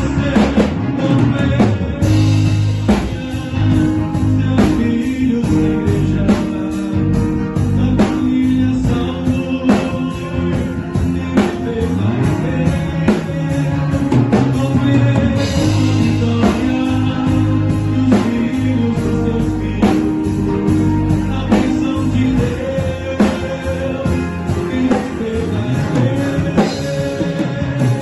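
Instrumental break in a Brazilian gospel song: a full band with drum kit and guitar playing at a steady beat.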